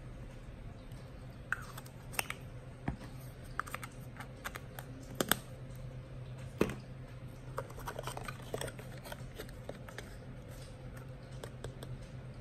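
Scattered light clicks, taps and rustles of hands handling small items on a tabletop, over a low steady hum.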